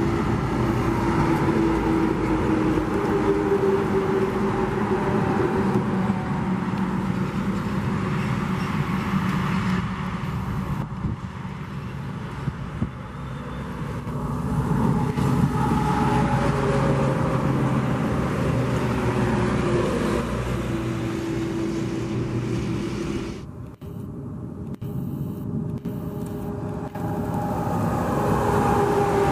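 Heavy diesel trucks pulling multi-axle bitrem trailers driving past on a highway, one after another. Engine and tyre noise swells and fades with each pass, and the engine pitch slides as each truck goes by. The sound drops suddenly about 23 seconds in, then builds again as another truck approaches.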